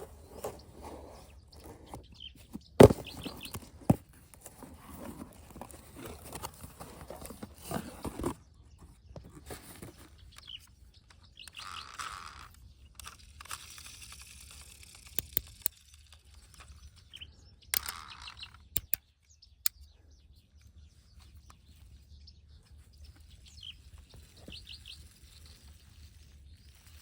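Scattered sharp clicks and knocks, the loudest about three seconds in, with short high chirps of a small bird now and then.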